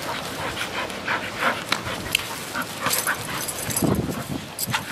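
A bull terrier and a grey young dog play-fighting: a run of short, irregular dog noises as they wrestle, with a louder, deeper sound about four seconds in.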